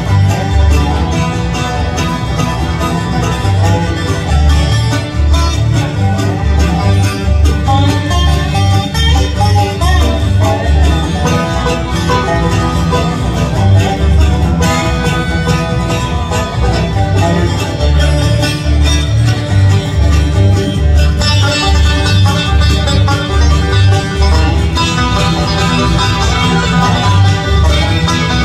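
Bluegrass band playing an instrumental passage live: fiddle, acoustic guitars, mandolin and banjo over an upright bass keeping a steady beat. Near the end the banjo comes to the fore.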